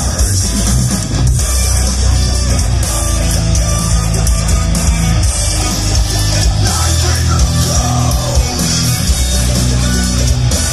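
Loud rock music with strong bass, played through a PA setup of Wharfedale EVP-X12 top speakers and Targa D12 subwoofers.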